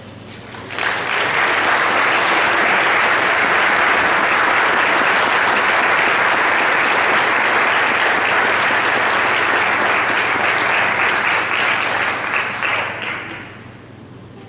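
Church congregation applauding. The clapping starts about a second in, holds steady, and dies away near the end.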